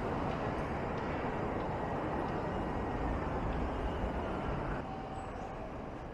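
Outdoor city street noise: a steady rumble and hiss of traffic, with a heavier low rumble that drops away a little before five seconds in.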